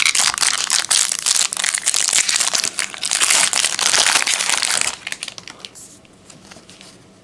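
Trading-card pack wrapper crinkling loudly as it is torn open for about five seconds, then dropping to faint, light rustling as the cards are handled.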